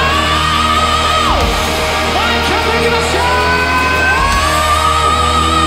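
Heavy metal band playing live at full volume over a steady low bass drone, with two long high held notes that slide up, hold and then fall away.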